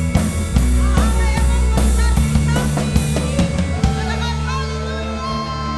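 Live praise-and-worship band playing the song's ending, with a drum kit and bass guitar: the drums keep hitting until about four seconds in, then stop and the final chord rings out.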